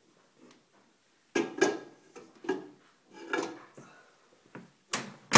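A bowl being pushed across the counter and into a microwave, with a series of knocks and scrapes. Near the end the microwave door is shut with a loud clunk.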